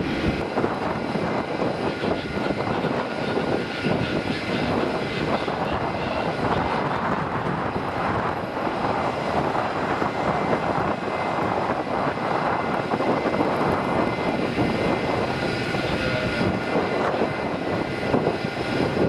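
Turboprop airliner engines and propellers running at high power, a steady dense noise with thin high tones held over it: first a Dash 8 climbing out, then an ATR 72 on the runway.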